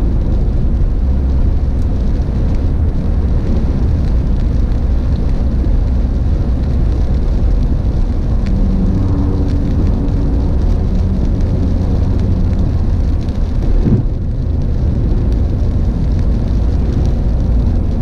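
Car driving at highway speed, heard from inside the cabin: a steady low rumble of road and engine noise.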